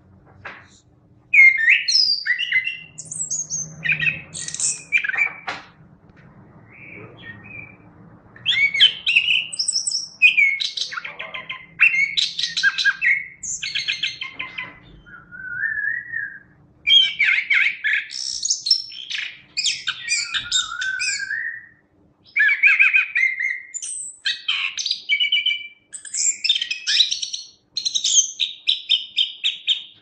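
Chestnut-capped thrush (anis kembang) singing a varied, fast song in bursts of a second or two separated by short pauses, mixing quick repeated notes with sliding whistled phrases.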